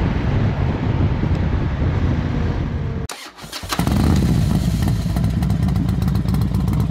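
Honda Rebel motorcycle engine running under way, a steady loud rumble. It drops out briefly with a couple of clicks about three seconds in, then comes back just as loud.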